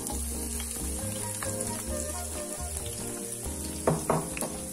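Chopped garlic frying in hot oil in a nonstick pan: a steady high sizzle. Two short knocks near the end.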